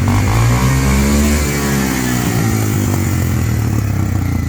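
ATV engine running loudly, revving up and then falling back.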